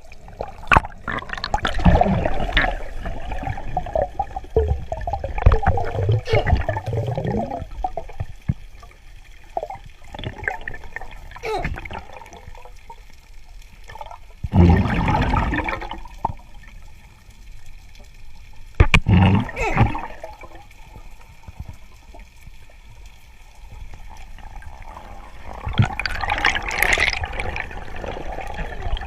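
Seawater gurgling and sloshing close to the microphone, in irregular surges, the strongest about 15 and 19 seconds in.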